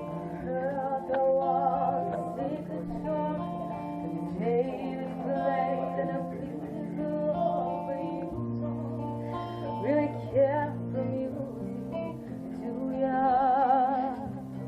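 Music: strummed acoustic guitar under a melody line with wavy vibrato, likely a female voice singing.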